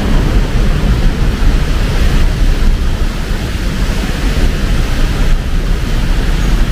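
Heavy rain pouring down steadily: a loud, even hiss over a deep rumble.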